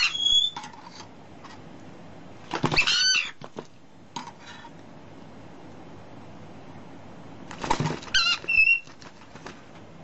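Parrot giving short bursts of wavering, whistled calls, about three seconds in and again around eight seconds, with scattered clicks between.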